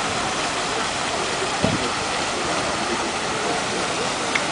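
Fountain jets splashing steadily into a pool, a continuous rushing of falling water, with faint voices of people nearby. A single brief thump sounds under two seconds in.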